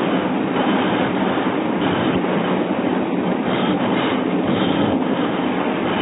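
Steady road and engine rumble of a car driving at highway speed, heard from inside the vehicle and sounding dull and muffled.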